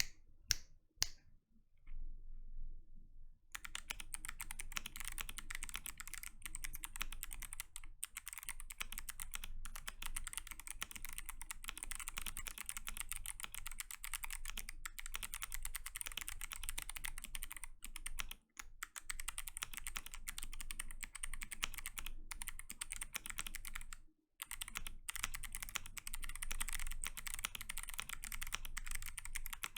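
Typing on a KBD67 Lite R2 mechanical keyboard fitted with Kailh Box Jade clicky switches, each keystroke giving a sharp click. A few single keystrokes come first, then steady fast typing from about three and a half seconds in, broken by two brief pauses.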